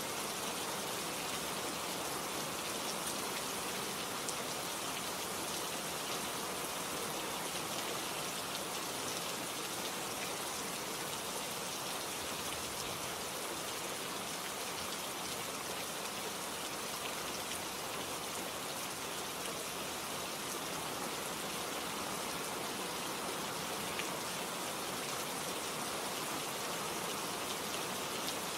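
Steady rain falling, an even hiss of many drops with faint scattered drop ticks.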